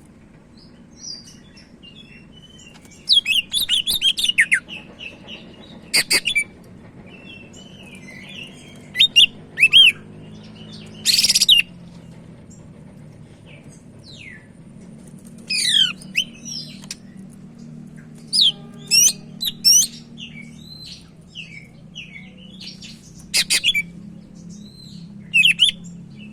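Green leafbird (cucak ijo) singing in short bursts a few seconds apart: sharp whistles sweeping up and down, and quick chattering runs of notes, over a faint low hum.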